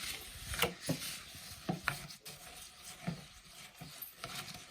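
A spoon stirring puffed rice cereal coated in melted chocolate in a bowl: irregular scraping strokes with a crisp crackle of the cereal.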